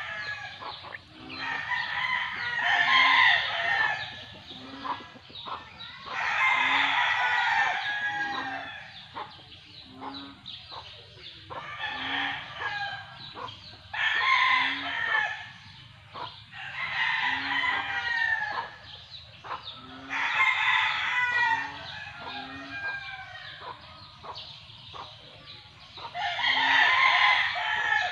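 Roosters crowing over and over, one crow every two to three seconds, each lasting a second or two, with chickens clucking at a steady pace in between.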